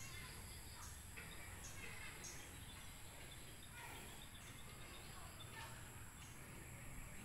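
Faint outdoor ambience: a steady low hum and a high hiss, with short chirps now and then.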